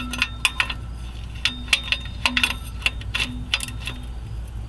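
Hand ratchet clicking in short, uneven strokes, tightening the exhaust collector flange bolts down on a new gasket.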